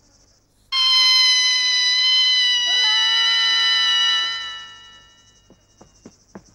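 Two long, level, high-pitched held tones on the cartoon soundtrack. The second, lower one joins about two seconds in, and both fade out together. A few short sharp clicks follow near the end.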